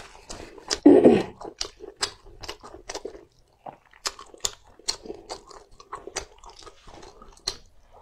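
Close-miked chewing of spicy hand-rolled noodles: irregular wet mouth clicks and smacks, with a louder mouth sound about a second in.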